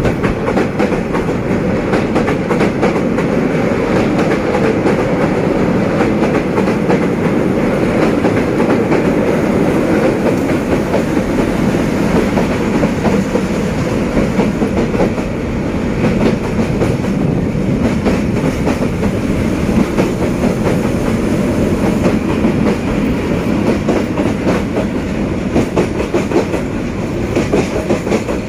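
Freight wagons rolling past on a downhill grade: a steady rumble of steel wheels on rail, with rapid clattering as the wheels pass over the rail joints.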